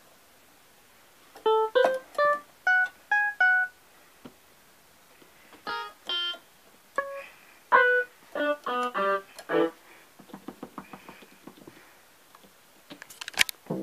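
Keyboard notes played one at a time through a MIDIPLUS miniEngine USB General MIDI sound module: short, piano-like tones that die away quickly, about two a second. They are followed by a quick run of fainter short notes and a sharp click near the end.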